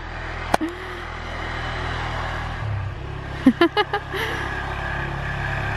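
Quad bike (ATV) engine running steadily as it comes up a snowy driveway, growing louder a little past halfway. A single sharp click comes early, and a quick run of clicks follows about three and a half seconds in.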